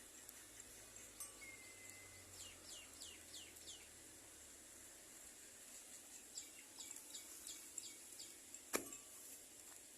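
Faint bird chirps over a quiet background: two runs of quick, high, downward-sliding notes, five or six in each run, and a single sharp click near the end.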